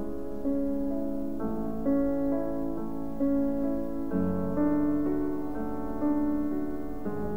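Background piano music: a slow melody over held chords, a new note sounding about every half second, with the harmony changing twice.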